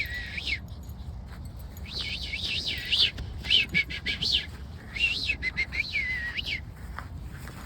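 Songbird calling in a quick series of short, high chirps that rise and fall, in several runs with short pauses between them.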